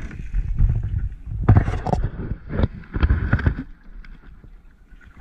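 Water slapping and splashing against the hull of a small open fishing boat, over a gusting low rumble of wind on the microphone; the louder splashes come between about one and a half and three and a half seconds in, and it quietens near the end.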